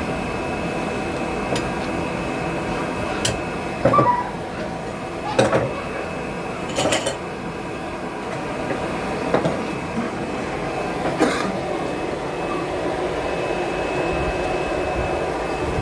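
Blacksmith's hammer striking hot iron on an anvil: about eight scattered, irregular blows, some with a short metallic ring, over a steady background rumble.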